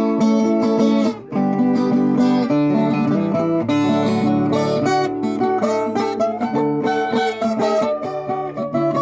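Viola caipira played solo: a plucked melody with ringing chords on its steel strings, with a brief break a little over a second in.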